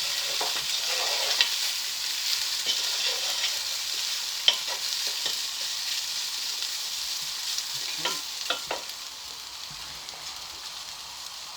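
Chicken and vegetables sizzling steadily as they fry in a pan, with a few sharp clinks and scrapes of a utensil stirring against the pan; the sizzle eases a little near the end.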